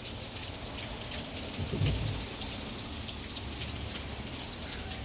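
Heavy rain falling steadily, a continuous hiss with many small drop ticks. About two seconds in there is a brief, low rumble.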